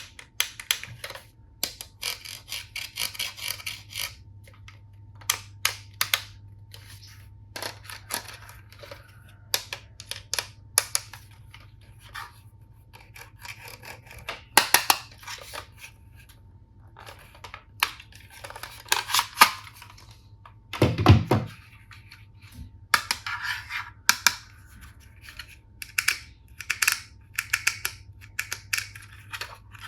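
Plastic toy tools and packaging being handled: scattered sharp clicks and clatters with bursts of rustling and scraping, and one heavier thump about two-thirds of the way through.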